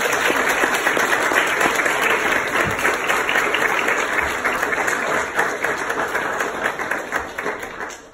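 Congregation applauding: a dense patter of many hands clapping that thins out and fades near the end.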